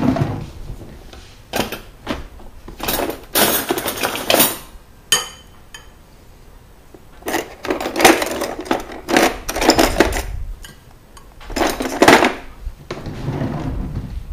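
Dishes and cutlery clattering as they are handled, in irregular bursts of knocks and scrapes, busiest a few seconds in and again past the middle.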